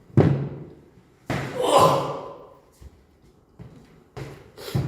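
A man sneezing twice: a short sharp sneeze, then about a second later a longer one, followed by a few short, softer breaths or sniffs near the end.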